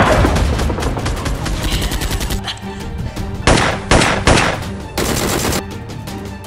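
Rapid automatic gunfire sound effects over background music, with a few louder blasts in the middle.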